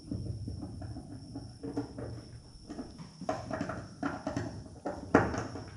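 Hand tools clicking and tapping on the metal camera mount as a jam nut is run onto its threaded extension and tightened: a scatter of small uneven clicks and knocks, with one sharper knock about five seconds in.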